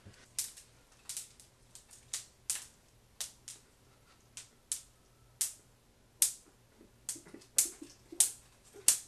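Wire coat hangers clacking against each other as they are swung and struck together in a mock sword fight: irregular sharp metallic clicks, roughly two a second.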